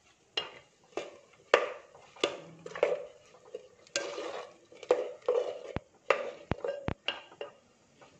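A ladle stirring chunks of raw plantain and yam in water in a clay pot. It knocks and scrapes against the pot in about a dozen separate strokes, one or two a second, with a few sharper clicks about six to seven seconds in.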